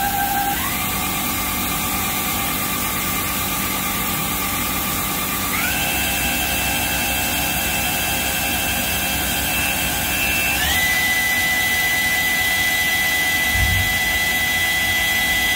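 A spindle drive on a Tsugami SS20 Swiss-type CNC lathe runs with a steady whine. Its pitch steps up three times as the speed is raised in stages: near the start, about a third of the way in, and about two-thirds of the way in.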